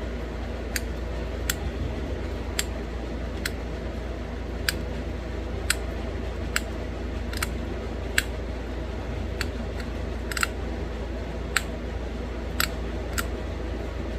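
Pressure flaking a small bird point from a thin flake of green novaculite: sharp little ticks as flakes pop off the edge, about one a second at an uneven pace, over a steady low hum.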